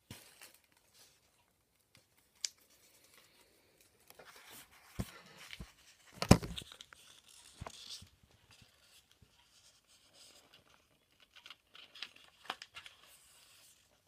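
Kraft-paper origami beetle crinkling and rustling as it is handled and turned, with a few sharp clicks of the paper and a louder knock with crackle about six seconds in.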